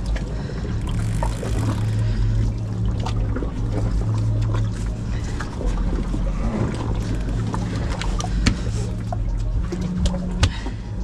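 Boat's outboard engines idling with a steady low hum, with scattered small clicks and knocks over it.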